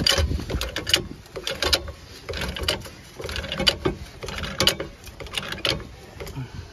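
Hydraulic floor jack being pumped by its long handle to raise a small cargo van: repeated metallic clicks and creaks with each stroke, roughly one to two strokes a second.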